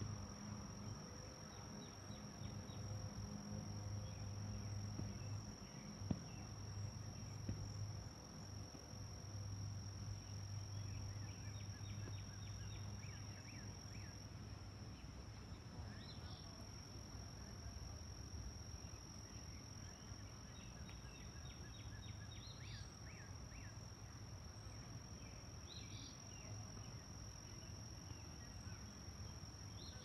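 Faint lakeside ambience: a steady high-pitched insect drone, like crickets, with a low steady hum underneath. Several short bursts of rapid ticking chirps come and go over it.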